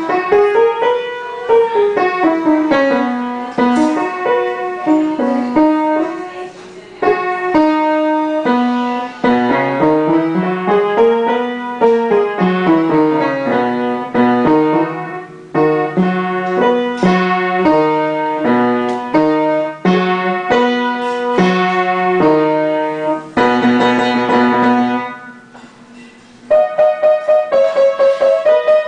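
Piano music: a line of single notes climbing and falling in steps over a moving bass. Near the end it drops away for about a second and a half, then comes back with quick repeated notes.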